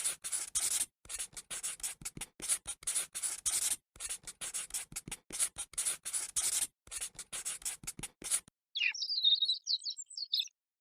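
A quick run of short scratching strokes, coming in bursts, then a few brief high chirps near the end.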